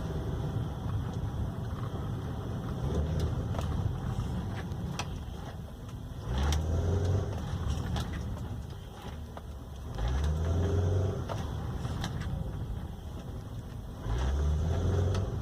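Chevrolet Captiva heard from inside the cabin on a road drive: engine and road rumble, with the engine pulling harder three times. No suspension clunk stands out, consistent with the jolt that new suspension bushings were fitted to cure.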